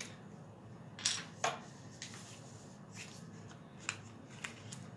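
Cardstock pieces being handled and set down on a craft mat: soft paper rustles with a few light clicks and taps, the sharpest two a little after a second in.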